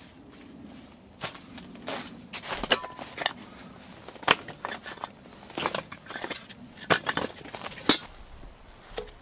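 Split firewood being handled and stacked by hand, the pieces knocking and clattering against each other in irregular sharp wooden clunks.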